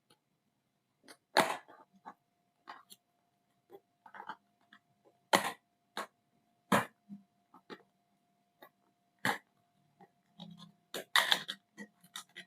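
Speaker box and its packaging being handled and opened: a string of separate clicks, taps and rustles, with a cluster of louder crinkles near the end.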